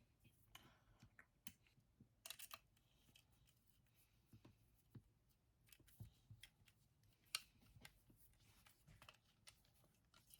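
Faint, scattered clicks and taps of small model-kit parts being handled and fitted together, with one sharper click about seven seconds in.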